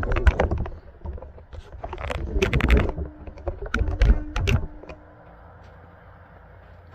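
Clicking and knocking of hands and tools working a fuel hose off its threaded fitting, in irregular clusters that stop about five seconds in.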